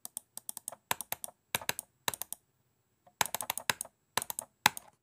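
Computer keyboard typing: quick runs of sharp key clicks with a short pause about halfway through, stopping just before the end.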